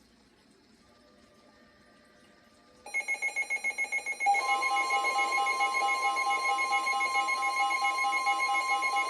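NOAA Weather Radio alert: faint hiss, then about three seconds in a rapid electronic beeping starts, and about a second and a half later a steady high alarm tone, the weather radio's warning alarm tone, joins it and holds, the beeping going on underneath. It signals that a new warning is about to be broadcast.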